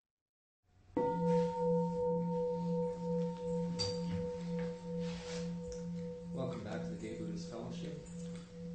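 Meditation singing bowl struck once about a second in, ringing on with a steady, slowly pulsing hum, sounding the close of the sitting meditation. Voices begin to murmur near the end.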